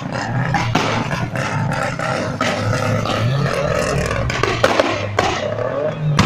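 A car engine running loudly, its pitch rising and falling as it is revved, with irregular crackles.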